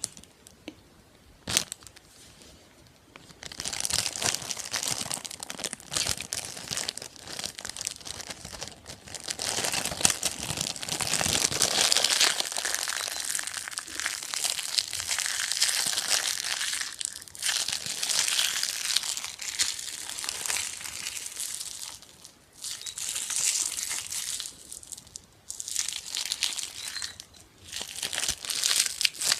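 Crinkly material being crumpled and handled close to the microphone, in long rustling stretches with a few short pauses. A single sharp tap comes just before it starts.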